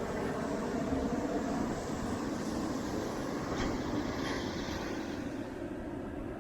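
Military jet aircraft passing overhead: a steady rumble, easing off a little near the end.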